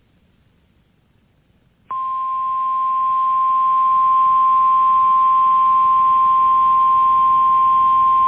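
Emergency alert attention tone, the single steady weather-radio warning tone a little above 1 kHz. It starts about two seconds in, after near silence, and swells slightly over its first two seconds before holding level. It signals an incoming severe thunderstorm warning broadcast.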